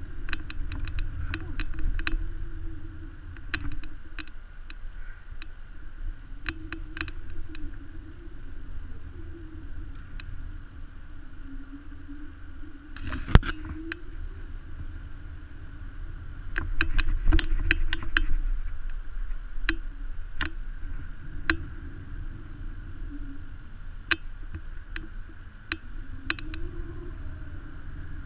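Steady low rumble with a wavering drone underneath, picked up on a GoPro Hero 3 Black's microphone, with scattered light clicks and knocks and one sharper knock about halfway through.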